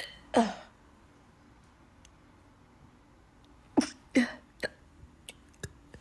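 Short, sharp involuntary bursts from a woman hiccuping while a sneeze keeps building, each falling in pitch. There is one right at the start, then a close pair about four seconds in, followed by a few quieter clicks.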